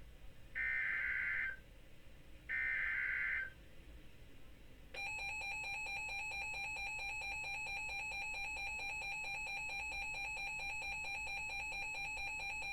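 Two Emergency Alert System SAME data bursts, each a harsh buzzing warble about a second long with a pause between, then a loud steady EAS two-tone attention signal that starts about five seconds in and holds, announcing the next alert.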